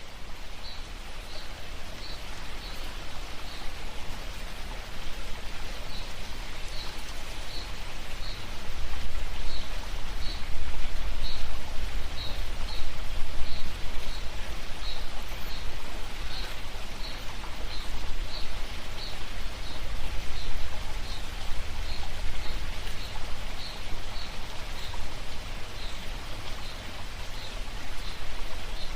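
Mountain stream running in a steady, even rush of water. A small high chirp repeats two or three times a second through most of it, pausing now and then.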